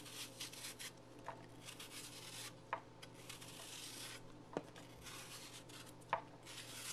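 A small kitchen knife peeling the skin off a green apple: faint scraping, rasping strokes as the blade cuts around the fruit, with a few short ticks along the way.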